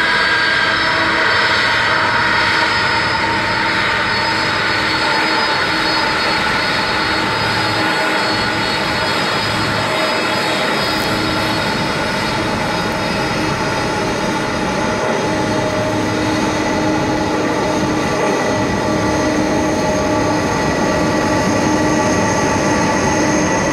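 Boeing 747 Dreamlifter's four turbofan engines running at taxi power as the freighter rolls past: a steady jet whine with several high tones that sink a little in pitch over the first few seconds.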